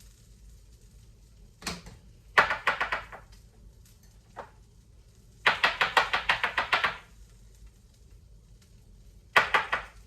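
Quick hard tapping or rattling on a hard object, in three bursts of rapid taps at about ten a second. The middle burst is the longest, and a single knock comes just before the first.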